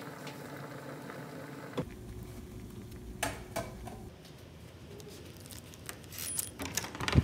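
Dumpling soup simmering and bubbling in a small saucepan on an electric stovetop, with a couple of sharp clinks a little after halfway. Near the end, a run of clicks and knocks as a door is handled, the loudest just before the end.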